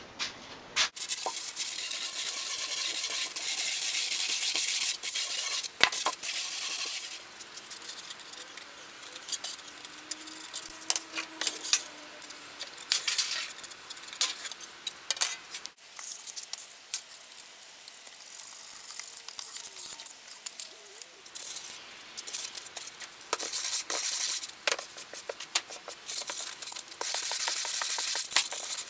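Hand work on white foam: a sanding block's sandpaper rasps over the foam in back-and-forth strokes, at the start and again near the end. In the middle come scattered scraping cuts and clicks as a knife is drawn through the foam.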